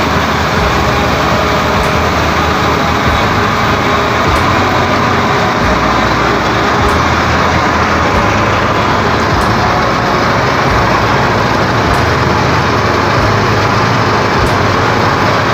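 Citrus washing and grading machine running: a steady, loud mechanical drone with the hiss of water sprays over the fruit.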